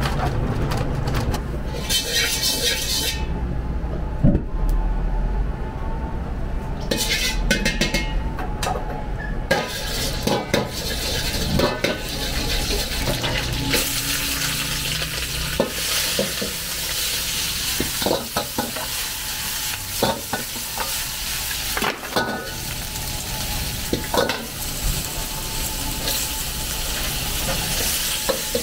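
Cabbage and other vegetables sizzling as they are stir-fried in a wok over a gas burner, with the metal ladle repeatedly scraping and knocking against the wok. The sizzling starts about ten seconds in; before that there is a low rumble with two brief spells of hissing.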